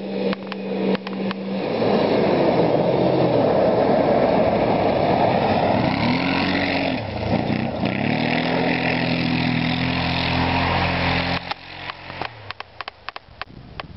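Arctic Cat TRV 1000 ATV's V-twin engine under hard acceleration as it comes up close and passes, its pitch rising, dipping briefly, then climbing and holding. It cuts off abruptly about eleven seconds in, followed by scattered sharp clicks and knocks.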